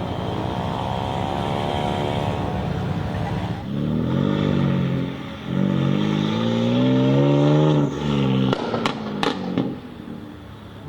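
A car engine accelerating hard through two rising pulls, each climbing in pitch, followed by three or four sharp cracks about nine seconds in.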